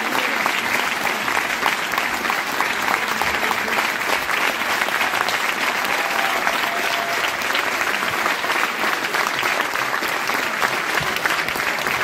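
Theatre audience applauding: many hands clapping in a dense, steady patter.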